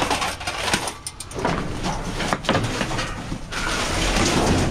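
Rummaging through dumpster trash: several knocks and clunks from handling sheet-metal computer cases, and plastic bags rustling, longest near the end.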